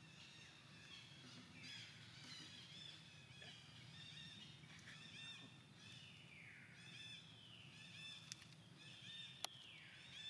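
Faint, high-pitched animal calls repeated over and over, several of them gliding down in pitch, over a low steady background hum.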